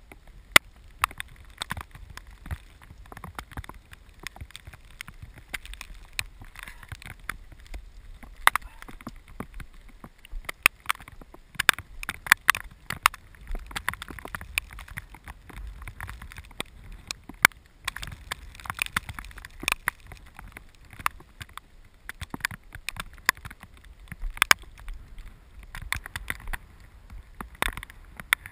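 Raindrops striking the camera in a storm, many irregular sharp ticks, over a low rumble of wind on the microphone.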